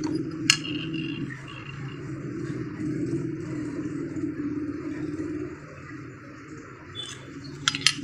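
LG top-loading washing machine running with a steady low hum. A sharp clink comes about half a second in and a few more near the end.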